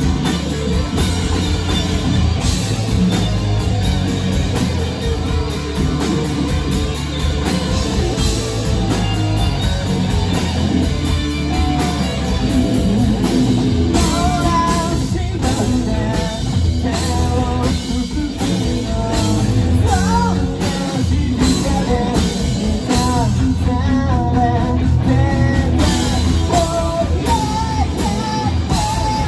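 Live rock band playing: electric guitars, bass and drum kit, with a lead vocal coming in about twelve seconds in.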